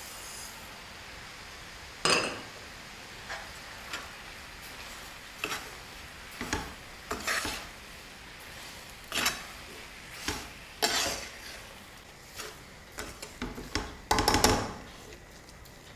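Metal spoon stirring grated carrots in a wok, sugar being mixed through, with irregular clinks and scrapes of the spoon against the pan over a low steady hiss of the cooking carrots.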